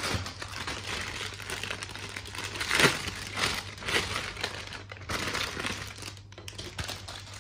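Clear plastic bag crinkling and rustling as a plastic model-kit runner is handled and pulled out of it, loudest about three seconds in.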